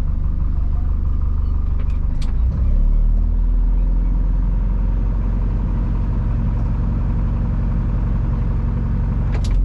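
Boat engine running steadily, with a deep rumble; its note shifts once about two and a half seconds in.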